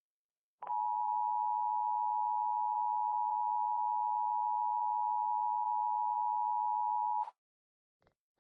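Emergency Alert System attention signal: two steady tones sounding together, starting about a second in and held for about six and a half seconds, then cut off abruptly. It is the warning tone that announces an emergency broadcast.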